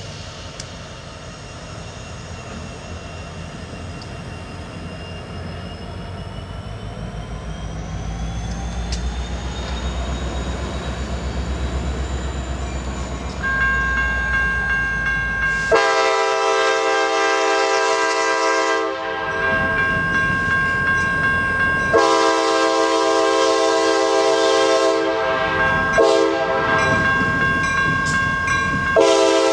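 CSX diesel locomotives approaching at low speed, the engine rumble building with a gliding whine over it. Just past halfway the lead unit's air horn sounds the grade-crossing signal: long, long, short, long.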